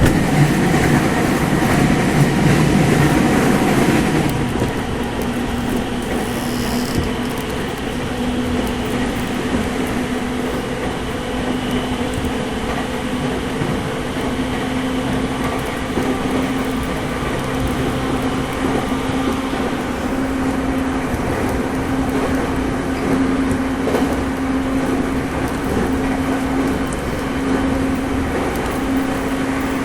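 E217 series electric commuter train running at a steady speed, heard from on board: a steady rumble of wheels on rail under a level traction-motor hum, with a louder, rougher stretch in the first four seconds.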